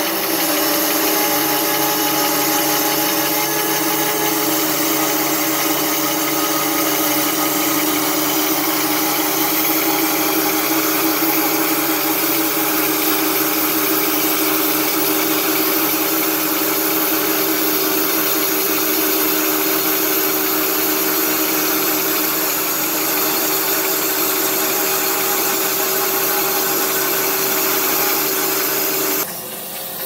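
OX SB-800 band sawmill running steadily, its band blade cutting lengthwise through a log to slice off a board, with a steady hum of a few tones under the cutting noise. It cuts off suddenly near the end.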